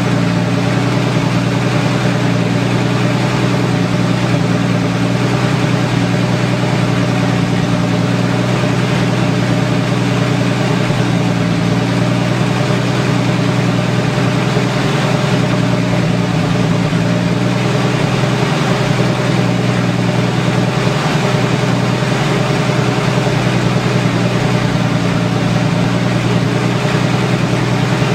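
AMC 258 (4.2 L) inline-six engine with a straight-piped exhaust idling steadily, shortly after its first start in months.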